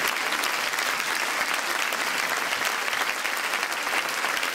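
Audience applauding steadily: the many hand claps of a large seated crowd in a hall.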